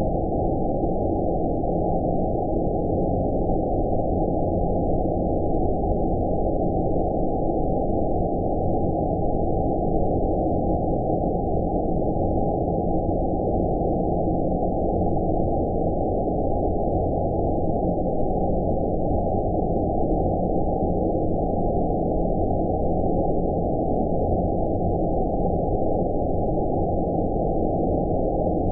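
Steady deep rumbling noise with all the high end cut away, an unchanging low hiss-rumble of the kind sold as 'space noise'.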